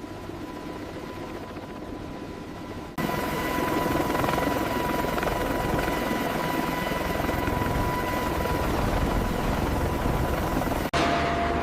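Steady, loud mechanical drone with a constant whine, as of heavy machinery running during a lift. It steps abruptly louder about three seconds in and cuts out for an instant near the end, where a slightly different drone takes over.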